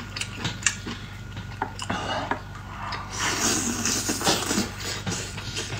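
Eating sounds: wet chewing and slurping of spicy tripe strips, with scattered light clicks of chopsticks against the metal pot. A longer slurp comes about three seconds in.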